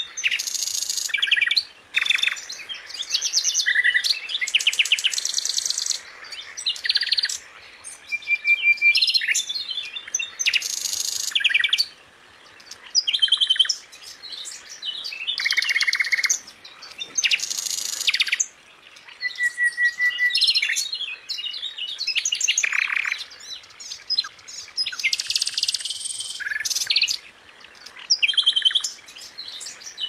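A songbird singing a long, varied song in phrases of a second or two with short pauses between them. The phrases mix rapid high trills and repeated notes with short, clear whistles.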